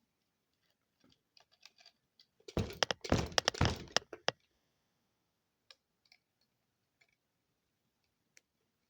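Small screwdriver and plastic housing of a sound machine clicking and clattering as screws are worked at. A few light clicks, then a dense run of loud clicks and knocks from about two and a half to four seconds in, then scattered single clicks.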